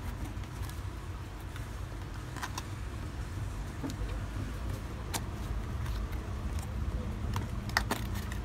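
Cardboard riflescope box being handled and its end flap opened: a few light clicks and taps, the loudest near the end, over a steady low rumble.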